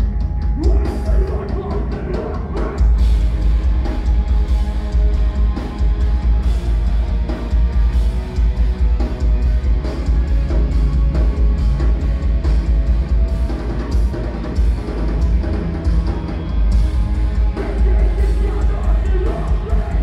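A post-hardcore band playing live through a club PA, heard from within the audience: loud distorted guitars, fast drumming with constant cymbal hits, and vocals over a heavy, booming low end.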